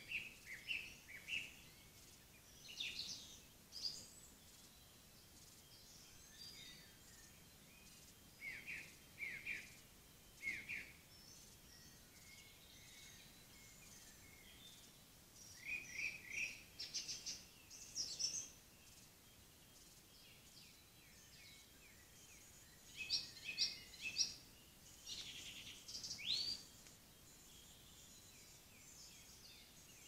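Woodland songbirds singing: short phrases of chirps and whistles every few seconds. The busiest stretch comes about two-thirds of the way in.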